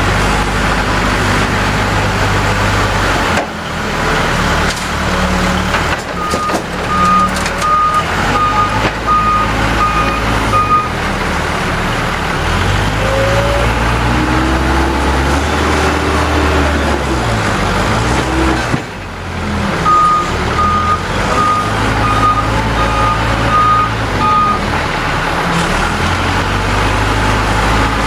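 Case 580L backhoe's diesel engine revving up and down as the machine works the loader, with a reversing alarm beeping steadily about one and a half times a second in two runs: one starting about six seconds in, the other about twenty seconds in.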